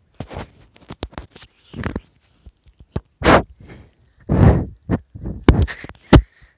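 Handling noise from a phone being moved about: rubbing and rustling against the microphone, with loud noisy bursts and several sharp knocks.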